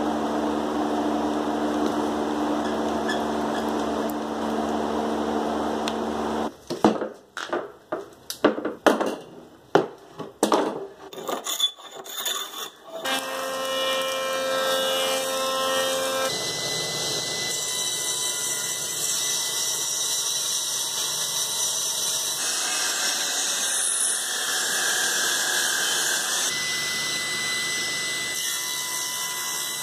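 A run of woodshop sounds: a steady hum, then several seconds of irregular sharp knocks and clatter, then power tools running. A jointer is running as a board is fed over it, and near the end a table saw blade cuts through a board on a sled.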